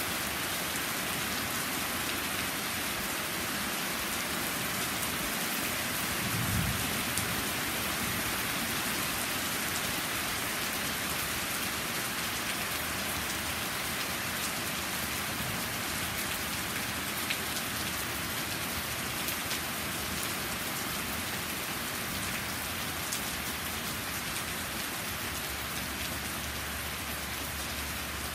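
Heavy, steady rain falling on trees and a patio during a thunderstorm, with a brief low thump about six and a half seconds in.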